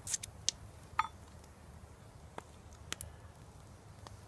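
A few light clicks and ticks, one with a brief metallic ring, as a small tin can of tomato sauce is handled and tipped over a cast-iron Dutch oven of stew, with a faint steady low rumble underneath.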